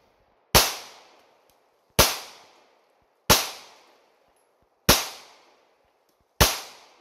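Five shots from a Glock 19 Gen5 9mm pistol, fired at a slow steady pace about a second and a half apart, each dying away over about half a second.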